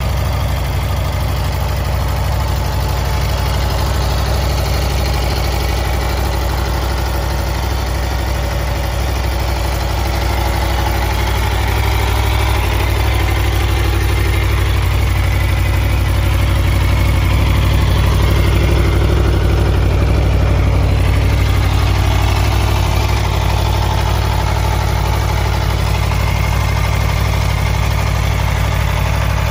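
A 2021 Aprilia Tuono V4 1100's V4 engine idling steadily.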